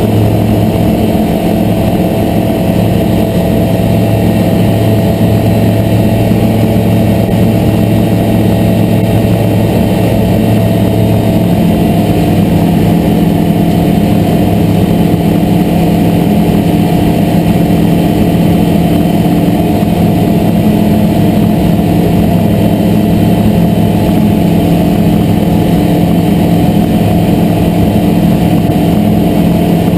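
Aeroprakt A22LS light aircraft's Rotax 912 flat-four engine and propeller running steadily through lift-off and the climb, heard from inside the cockpit. Its deepest tone drops away about twelve seconds in.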